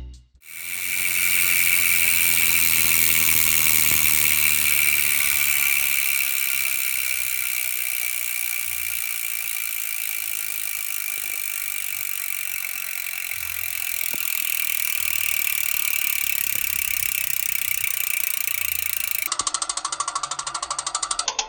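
Weapon Fever rear hub's five-pawl freewheel buzzing loudly as the bike coasts, its pitch slowly falling as the wheel slows. Near the end it changes to a quicker run of separate, evenly spaced ratchet clicks.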